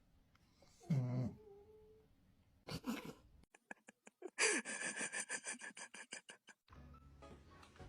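A cat meows once about a second in, a short falling call that levels off. Later comes a rapid, even run of clicks, about nine a second for two seconds, with a high ringing tone over them.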